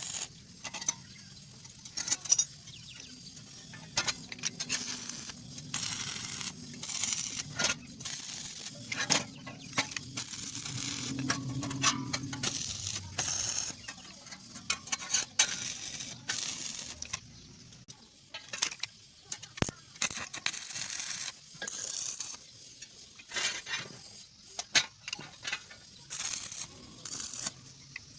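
Metal pieces clinking and knocking in irregular short strikes, some sharp and ringing, with a low hum between about four and thirteen seconds in.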